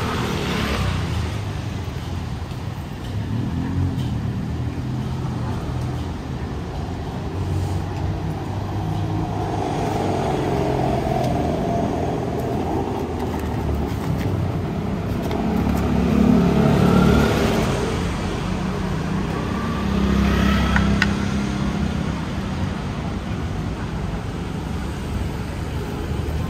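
Street traffic: a steady rumble of engines, with two louder vehicles accelerating past after the middle.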